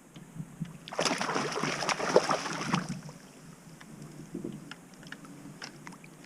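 Water splashing loudly for about two seconds, starting about a second in, beside a kayak, followed by a few faint clicks and knocks.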